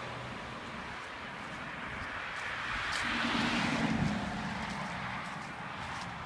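A car passing on the road, its engine and tyre noise swelling to a peak about three to four seconds in and then fading, over a steady traffic hum.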